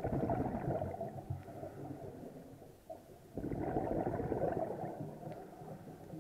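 Scuba diver exhaling through a regulator, the bubbles gurgling past an underwater camera housing: two exhalations, each about two seconds long, the second starting about three seconds after the first.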